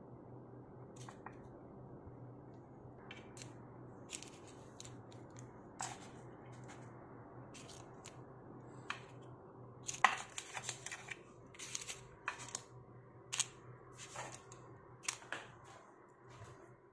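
Wooden chopsticks clicking and tapping against a nonstick frying pan, with parchment-paper parcels of grilled fish cake crinkling as they are lifted out onto a plate. The clicks come sparsely at first and grow thicker and louder about halfway through, over a steady low hum.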